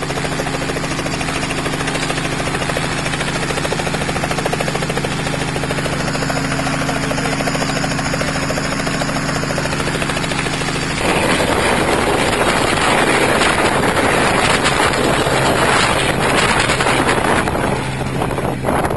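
Small two-bladed helicopter running close by, a steady rotor and engine hum. About eleven seconds in, a much louder rushing noise takes over and covers the hum, as the helicopter lifts off and flies low past.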